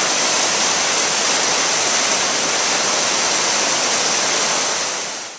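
Water rushing through a stone dam sluiceway and crashing into a churning pool below: a steady, loud rush that fades out near the end.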